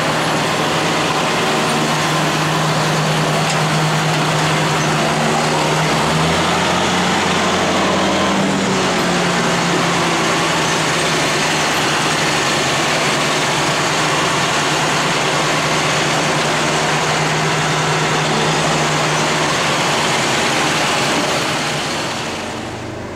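Loud, steady running of a vehicle engine, with a shift in its tone between about six and nine seconds in; the sound drops away near the end.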